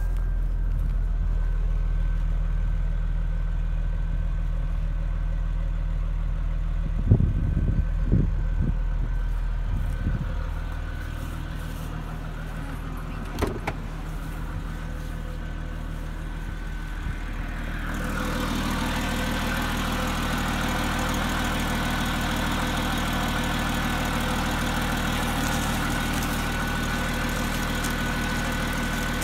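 Supercharged Jaguar XJR6's 4.0-litre straight-six idling steadily with cracked exhaust manifolds blowing. From about 18 seconds in the sound is heard close to the open engine bay and gains a sharper, hissing edge. A few knocks come in the first half.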